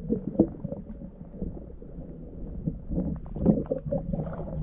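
Stream water splashing, with wind on the microphone and irregular low thumps that grow louder near the end.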